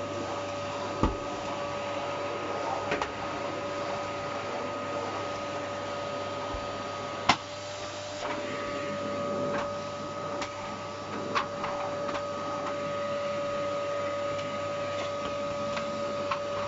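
Philips PowerPro Compact bagless cylinder vacuum cleaner running steadily with a constant whine. A few sharp knocks sound over it, the loudest about seven seconds in.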